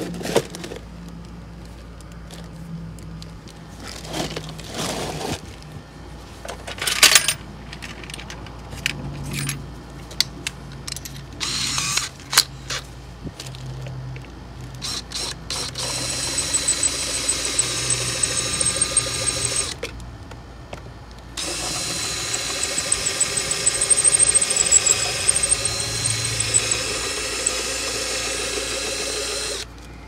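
Cordless brushless drill drilling out the rivets of a seat belt mounting bracket. After several seconds of scattered clicks and knocks, the drill runs for about four seconds, stops briefly, then runs again for about eight seconds, its whine wavering under load in the middle of the run.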